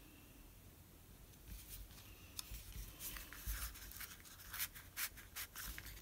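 Hands rubbing and handling cardstock as a glued paper ring is pressed onto card: faint paper rustling and scratchy brushing strokes, starting about a second and a half in and growing busier toward the end.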